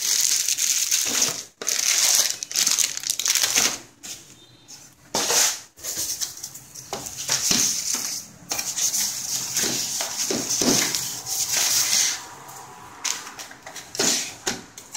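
Plastic packaging bags crinkling and rustling as they are handled, in irregular bursts with short pauses.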